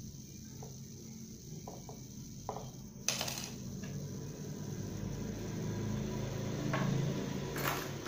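Tools and twigs being handled on a wooden workbench: a sharp knock about three seconds in, then light clatter and rustling near the end, over a steady low hum.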